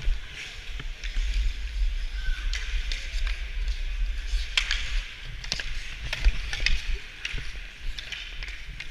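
Ice hockey skate blades scraping and carving on the ice, with several sharp clacks of sticks and puck, heard through a camera worn by a skater, with a low wind rumble on its microphone.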